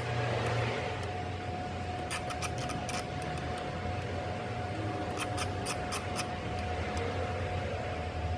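Metalworking in a fabrication shop: a steady machine hum with a constant mid-pitched tone, broken by several bursts of rapid sharp clicking.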